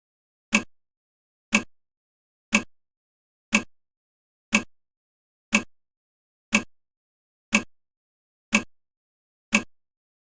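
Countdown timer's clock-tick sound effect: a single sharp tick every second, evenly paced, ten ticks in all.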